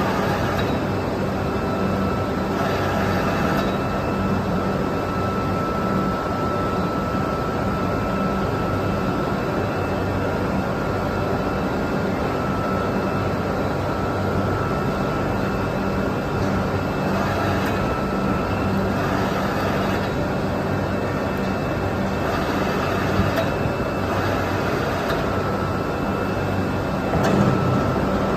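Steady foundry machinery noise with a constant low hum and a faint steady high tone running through it, a little louder near the end.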